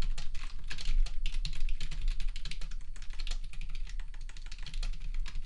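Typing on a computer keyboard: a quick, uneven run of key clicks as a short sentence is typed.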